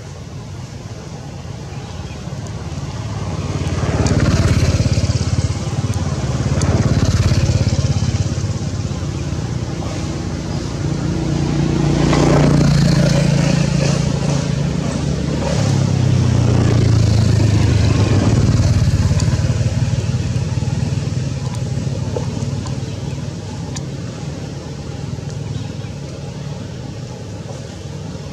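Motor vehicle engines passing by. The engine noise swells and fades several times, and its pitch steps up and down.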